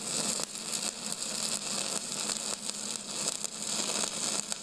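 MIG welding arc crackling and sizzling steadily, a dense hiss of tiny irregular pops over a low steady hum.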